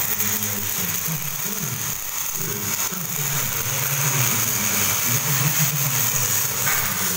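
Steady machinery hum in a metal workshop, with a constant high whine over a low, wavering drone.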